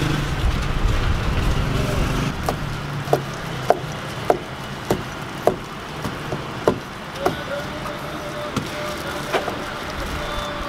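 Kitchen knife chopping sundae (Korean blood sausage) on a wooden cutting board: a regular run of knocks, about one every half second or so, starting a couple of seconds in and stopping near the end, over a low background hum.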